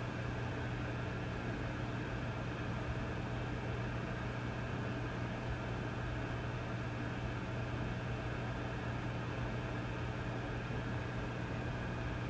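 Vintage tube amplifier idling with nothing playing: a steady low hum under a layer of static hiss, unchanging throughout.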